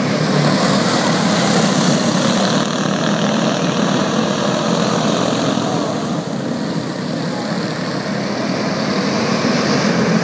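Quarter-midget race cars' small engines running together on the track, a loud steady buzzing drone that dips slightly about six seconds in.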